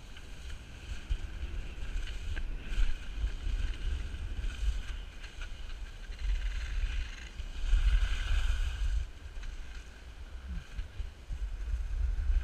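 Wind buffeting the microphone of a skier's action camera, a constant low rumble, with the hiss of skis sliding over snow that swells for a second or so about eight seconds in.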